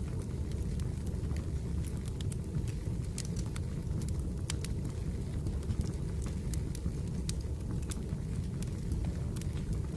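Firewood burning: frequent sharp, irregular crackles and pops over a steady low rumble.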